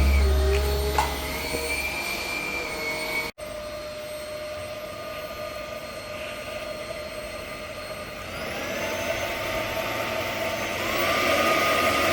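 Fakir Bolt X Plus Aqua 8472 cordless stick vacuum running: a steady motor whine over rushing air. It cuts out for an instant about a third of the way in, and its pitch steps up twice in the second half.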